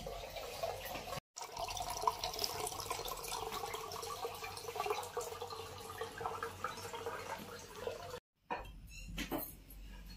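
Water running from the tap of a plastic water cooler into a steel tumbler: a steady stream for several seconds that breaks off sharply near the end.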